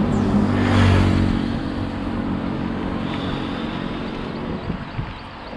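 Motorcycle engine running close alongside, loudest in the first second and then fading as it draws away, over road and wind noise.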